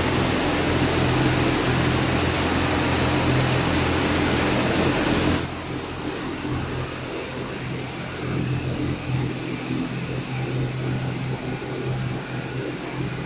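Steady mechanical hum with a constant rushing noise, typical of factory machinery and ventilation running. The noise drops sharply in level about five seconds in, then carries on steadily and quieter.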